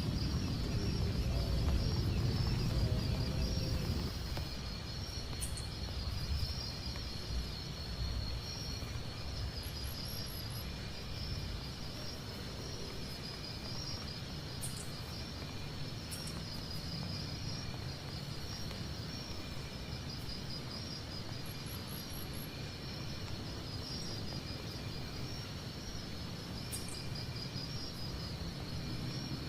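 Night insects keep up a steady, pulsing high-pitched chorus over a constant hiss of rain and a low rumble. The rumble is louder for the first few seconds, then eases.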